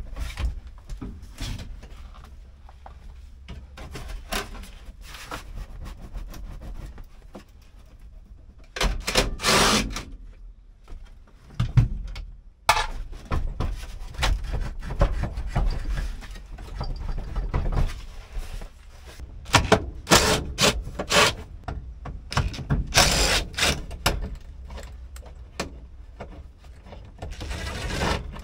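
Irregular knocks, clicks and scraping of hand tools and plastic trim as the steering column and dashboard of an old Ford pickup are taken apart, with several louder scraping bursts along the way.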